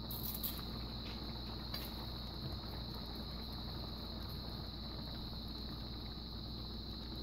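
Steady kitchen background noise: a constant high-pitched whine over a low hum, with a few light clicks in the first two seconds.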